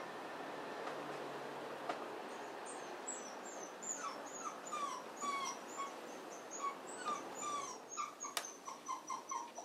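A dog whimpering: a run of short, high whines that fall in pitch, about two a second, starting about four seconds in.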